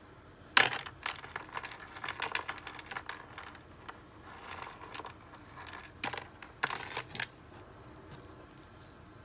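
Costume jewelry and beads clinking and rattling as they are handled and picked through in a cardboard box, with scattered sharp clicks; the loudest click is about half a second in, another just after six seconds.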